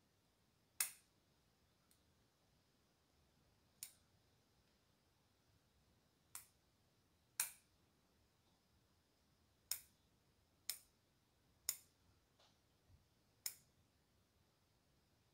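Bonsai shears snipping shoots and leaves on a bald cypress: about eight sharp, short snips at uneven intervals of one to three seconds, with a few fainter clicks between them.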